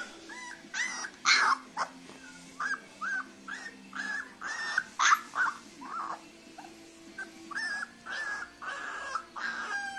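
Leonberger puppy whining and yipping: a rapid string of short, high-pitched cries, about two a second, a few of them louder and sharper.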